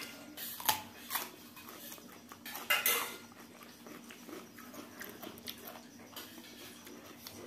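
Spoons clinking and scraping on stainless steel plates during a meal, with a few sharper clinks in the first three seconds and softer scrapes after.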